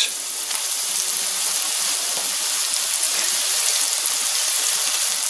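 Cornmeal-breaded green tomato slices frying in about half an inch of hot oil in a cast iron skillet, with a steady, even sizzle just after the pan has been loaded.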